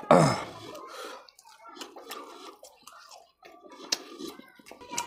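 Chewing and wet mouth sounds of eating fish curry by hand, with scattered small clicks as fingers pick at fish pieces on the plate. A loud short sound right at the start drops quickly in pitch.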